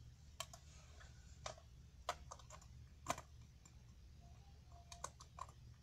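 Lego bricks and minifigures being handled and fitted into a Lego model: irregular sharp plastic clicks and taps, one louder click about three seconds in.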